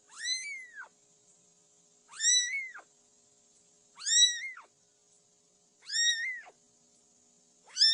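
A cat meowing over and over: four high-pitched meows about two seconds apart, each rising then falling in pitch, with a fifth starting at the end.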